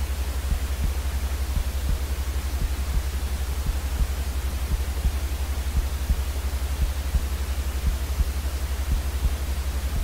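Steady white noise hiss over a low, rapidly fluttering rumble.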